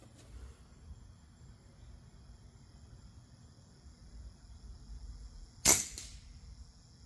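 A single pellet air rifle shot about two-thirds of the way in: one sharp crack with a short ring after it. Insects trill steadily underneath.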